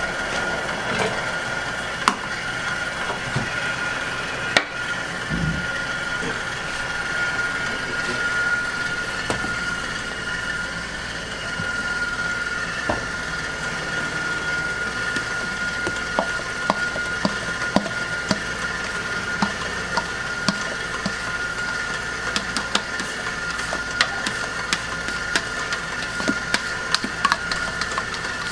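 Steady hum of kitchen machinery with a constant high whine, with scattered light clicks and knocks as a steel mixing bowl and utensils are handled.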